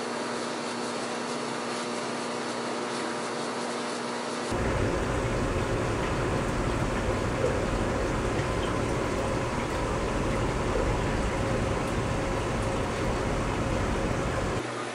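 Steady hum of running aquarium equipment, with several held tones over a low hiss. About four and a half seconds in, a cut brings a louder, deeper, even rushing noise that carries on until just before the end.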